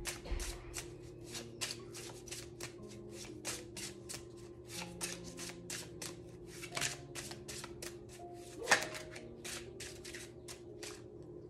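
A Neo Rider tarot deck being shuffled by hand: a steady run of crisp card snaps, about three or four a second, with one sharper snap near the end. Soft background music with sustained notes plays underneath.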